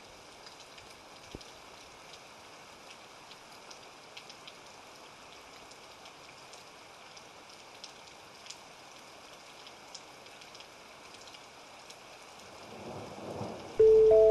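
Steady, faint rain hiss with scattered drops ticking. Near the end a swell rises and a loud chime of steady, stepped tones begins.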